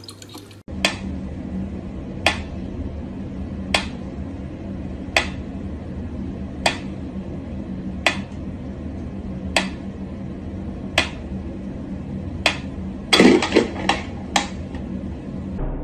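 Mechanical pendulum metronome ticking at a slow, even beat, about one tick every second and a half, over a steady low hum. Near the end comes a quick cluster of louder knocks and clatters.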